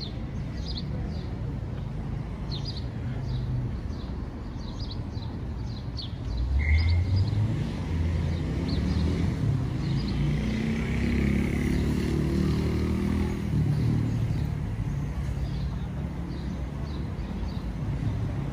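Street ambience: a motor vehicle drives past, its engine loudest from about six to fourteen seconds in, over a steady traffic hum. Small birds chirp repeatedly throughout.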